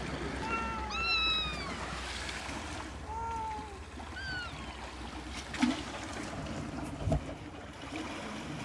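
Calico kitten meowing: about four short, high-pitched mews, each falling in pitch, in the first half, over a steady rush of wind and surf. A couple of soft knocks follow later.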